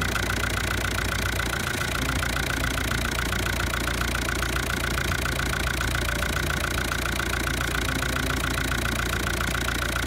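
Fiat-built diesel engine of a White Field Boss 2-60 tractor idling steadily with a fast, even beat, running again after its injector pump seals were renewed and the fuel system bled.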